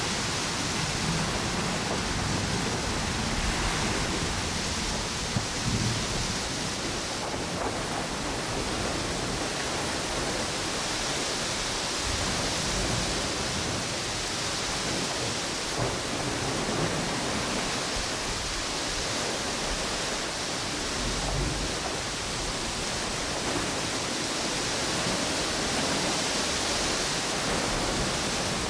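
Ocean waves washing onto a beach under strong wind, with wind through palm trees: a steady rushing noise that swells and eases slowly, over an uneven low rumble of gusts.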